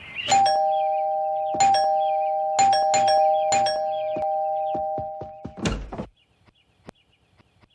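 Two-tone ding-dong doorbell rung again and again, about five presses in a few seconds, its two chimes ringing on until they cut off suddenly after about five and a half seconds. A short thump follows.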